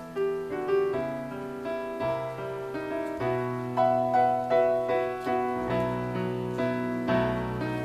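Background piano music: a melody of struck notes that ring and fade, over held low bass notes.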